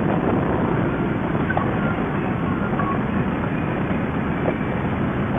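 Harley-Davidson bagger motorcycle cruising at highway speed: a steady engine drone mixed with wind rush and road noise.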